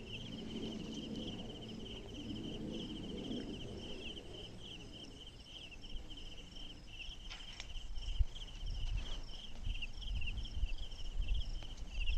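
Insects trilling steadily in a fast, pulsing, high-pitched chirr. A low rumble comes in from about eight seconds on.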